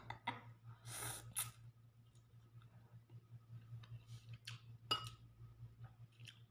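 A person slurping a forkful of instant noodles about a second in, then chewing quietly. A metal fork clicks lightly against the bowl, with one sharper clink about five seconds in.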